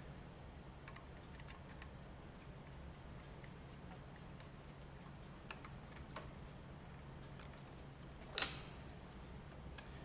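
Faint scattered ticks and clicks of a screwdriver turning the terminal screws of a 4-way wall switch while the wires are handled, with a brief louder rustle about eight seconds in.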